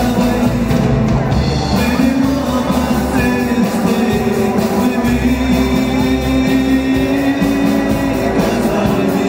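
A live rock band playing through a PA: electric guitars, electric bass and drum kit in a steady, full-band rock groove.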